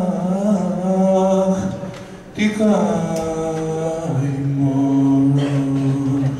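A man singing a slow melody in long held notes, breaking briefly about two seconds in before the next phrase. From about four seconds in he drops to a lower note and holds it.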